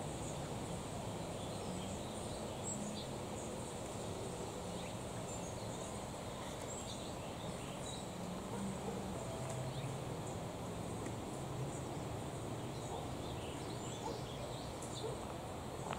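Outdoor back-yard ambience: a steady low background rumble, with faint, scattered short chirps from small birds.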